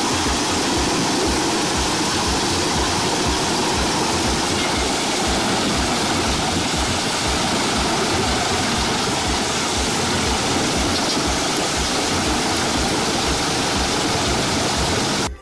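Biber 92 industrial wood chipper running: a loud, steady rush of noise with a low pulse repeating about two to three times a second.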